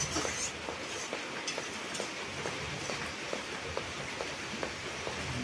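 Curry in a metal wok over a wood fire sizzling with a steady hiss, with a run of small clicks and taps as a metal spatula stirs it against the pan.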